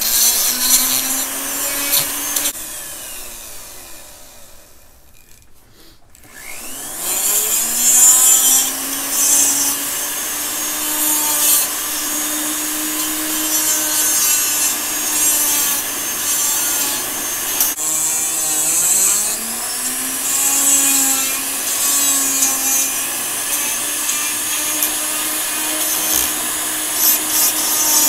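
A Foredom flex-shaft rotary carver with an abrasive bit spins against the wood, grinding and sanding it, its motor whining steadily under a gritty rasping. The motor winds down a few seconds in and spins back up about seven seconds in. It slows briefly and picks up again past the halfway point.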